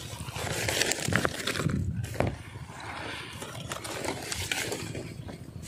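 Grass and dry stalks rustling and scuffing as someone moves through the bank vegetation, with a few short sharp clicks about one to two seconds in, over a low rumble of wind on the microphone.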